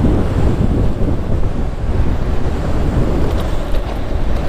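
Wind buffeting the microphone while riding an e-bike along a road: a steady, loud, low rumble.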